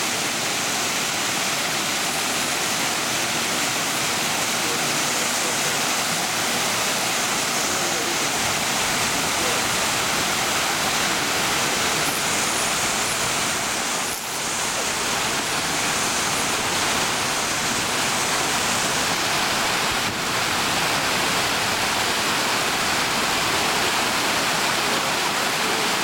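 Rock waterfall cascading in tiers over boulders into a stream: a steady, full rush of falling and splashing water.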